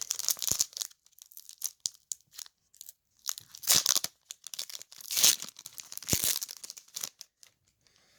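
Foil booster-pack wrapper of a Pokémon trading card pack being torn open and crinkled: several separate rips and crackling rustles.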